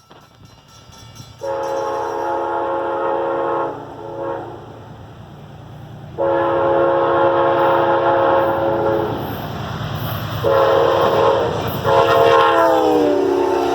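Amtrak passenger locomotive's multi-chime air horn sounding a series of blasts for a road crossing: a long one, a short one, then longer ones, the last dropping in pitch as the locomotive passes. The rumble of the train at speed runs underneath.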